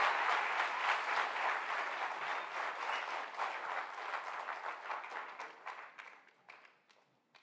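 Audience applauding, loudest at first and fading away over the last couple of seconds to a few scattered claps.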